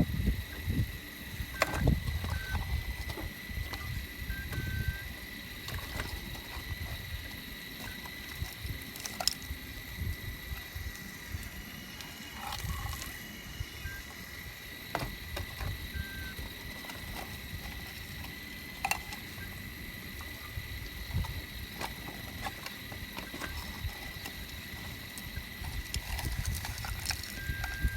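Caterpillar earthmoving machine's diesel engine running while digging into shale, with a low uneven rumble, a few sharp knocks and a steady high whine.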